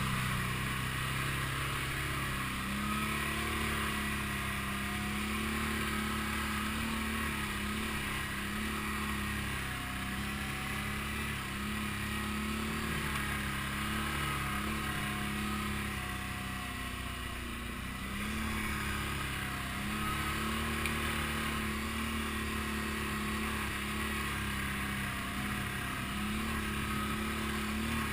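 ATV engine running while riding, its pitch rising and falling over and over as the throttle changes.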